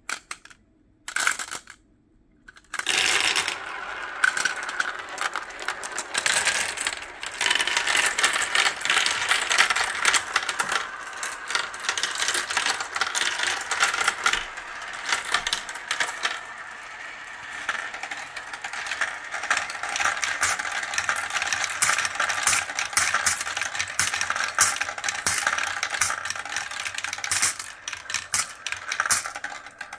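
Glass marbles clattering down a plastic marble run: a few single clicks, then from about three seconds in a dense, continuous rattle of many marbles through the tubes, funnels and spinning wheels, thinning out near the end.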